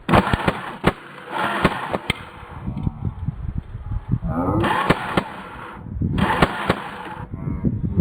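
Airsoft gun firing an uneven string of shots, with sharp cracks as pellets hit a plastic humidifier.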